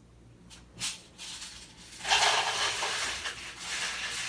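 Dry beans being poured into a container: a brief clatter, then a dense, continuous rattle of beans from about two seconds in.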